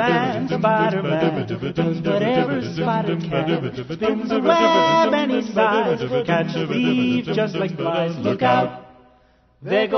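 A song with singing voices over a steady low accompaniment, cutting out for about a second near the end and then starting again.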